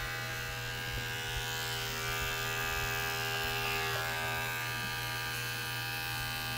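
HOLDOG electric pet hair clipper running with a steady buzz while shaving the fur between a puppy's paw pads.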